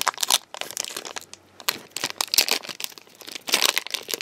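Foil wrapper of a Pokémon trading card booster pack crinkling as it is torn open and handled. The crackling comes in irregular spurts, with a short pause about a second and a half in.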